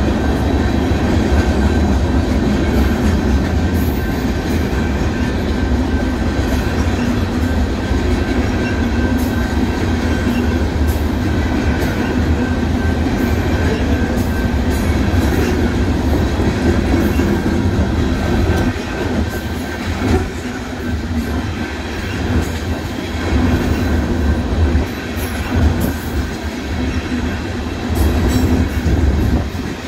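A freight train of covered hopper cars and tank cars rolling past, its wheels running on the rails in a steady heavy rumble. From about two-thirds of the way through, the sound becomes more uneven, rising and dipping.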